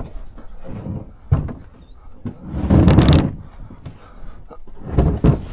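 Blue kayak hull being shoved up a rock face, knocking and scraping against the rock: a sharp knock about a second in, a longer scrape near the middle that is the loudest, and a heavy thump near the end.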